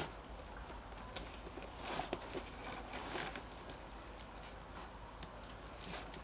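Faint, scattered small clicks and rustling of a strap clip and buckle being worked onto a canvas military bread bag.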